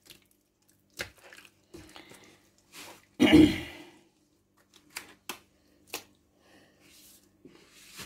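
Scattered light clicks and knocks from handling a steel pot of yogurt-marinated lamb, with one louder short sound about three seconds in, over a faint steady low hum.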